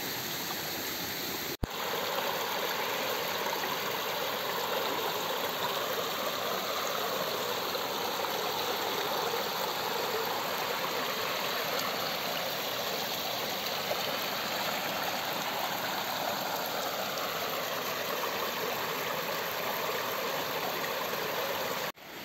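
Mountain stream running over rocks: a steady, even rush of water, with a momentary dropout about a second and a half in and again near the end.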